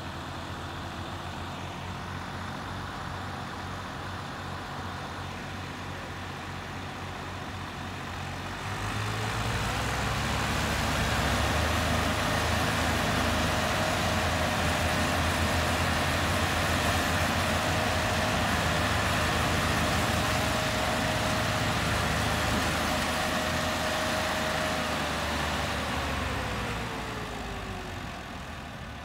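Tractor diesel engines from a team of Massey Ferguson 260s and a Belarus 510, running at low revs, then revving up together about eight seconds in and held high under load as they strain to pull a stuck, loaded sugarcane trolley. The revs drop back down a couple of seconds before the end.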